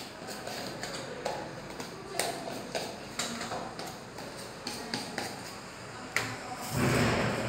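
Small spice jars with plastic lids being twisted open, handled and set down on a steel counter: scattered light clicks and taps, with a louder rustling thump near the end.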